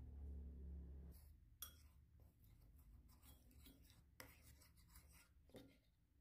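Faint scraping and clicking of a metal spoon against a clay bowl as flour and a little water are stirred into a batter. A low hum is heard in the first second, then stops.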